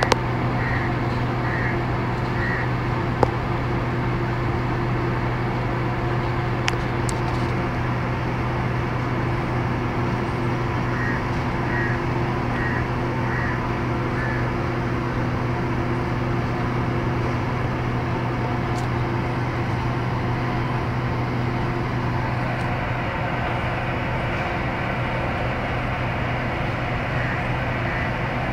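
A steady low mechanical hum from a running motor, with a few runs of three or four short high chirps near the start, in the middle and near the end.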